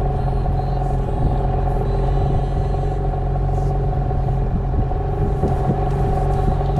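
Boat's outboard motor running steadily at low speed, a constant hum with a few held tones and no change in pace.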